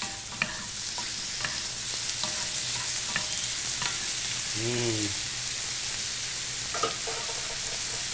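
Shrimp and chopped garlic sizzling steadily in a nonstick frying pan, stirred with a wooden spatula that taps and scrapes against the pan several times.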